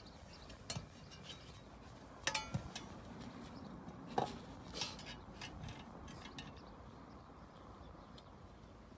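A few scattered light metallic clinks and taps from a hacksaw blade and a thin stainless steel sheet, the clearest about two and four seconds in; no steady sawing strokes.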